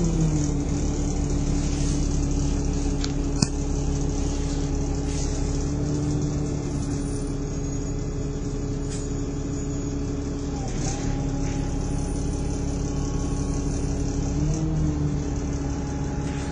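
Diesel engine of Stagecoach bus 19653 running steadily, heard from inside the passenger saloon. Its note dips briefly about eleven seconds in and rises a little near the end, with one sharp click about three seconds in.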